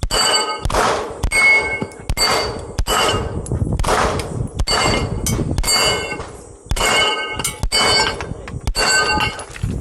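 Handgun shots fired at a quick pace, a dozen or so, each followed by steel target plates clanging and ringing as they are hit.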